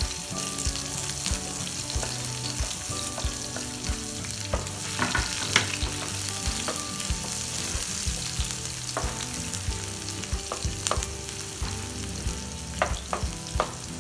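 Sliced shallots, garlic and chilies sizzling in hot oil in a non-stick frying pan, with a wooden spatula scraping and tapping the pan as they are stirred.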